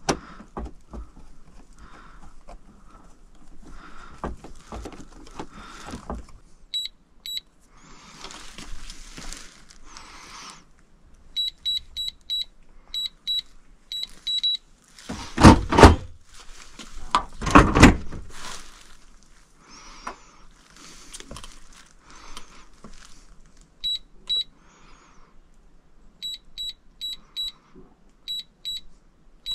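Electronic keypad of a gun safe beeping as its buttons are pressed: short high beeps, one per press, in quick runs of two to four. Two loud clunks come about halfway through.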